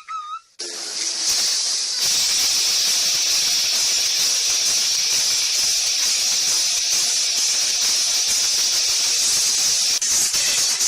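A few short whistled chirps, then a loud, steady hiss that starts abruptly about half a second in and holds without a break.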